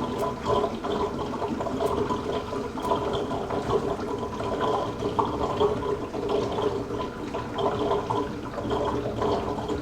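Water draining from a full kitchen sink down its newly plumbed drain, a steady rushing. It goes pretty quick: the drain vents freely through an air admittance valve.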